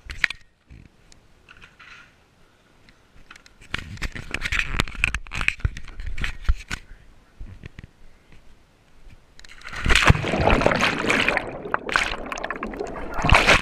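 A person jumps into a swimming pool wearing a chest-mounted camera: about ten seconds in comes a loud splash, then underwater rushing and bubbling that runs on to the end. Before that there are scattered knocks and scraping on the camera mount while he walks.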